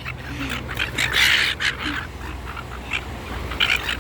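Seagulls squawking with harsh calls, the loudest about a second in, followed by several shorter ones.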